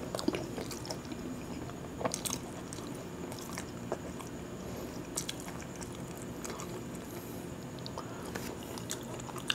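Faint close-miked eating sounds: chewing and soft wet mouth clicks as khichuri is eaten by hand, with small scattered ticks of fingers working the rice on the plate.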